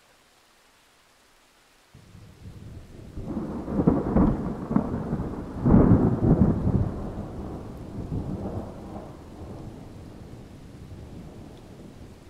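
A peal of thunder: a low rumble breaks in about two seconds in, swells to two loud cracks, then rolls away slowly.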